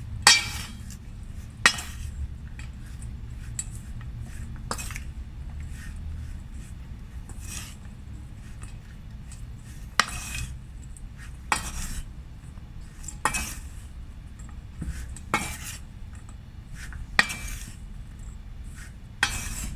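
Spoon clinking and scraping against a bowl while mixing anchovies into a fried-chicken-flour coating, with a sharp clink every one to two seconds.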